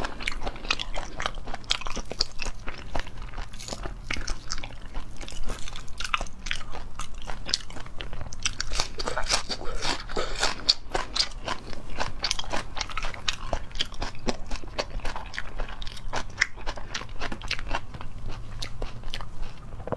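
Close-miked eating: a person biting, crunching and chewing food, with many quick, irregular crunches throughout.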